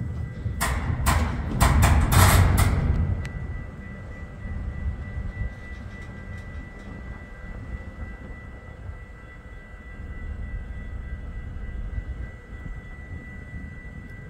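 Derailed, tilted covered hopper car being dragged along the track by a moving freight train: several loud metallic bangs and scraping crashes in the first three seconds, then a low rumble with a thin steady high squeal.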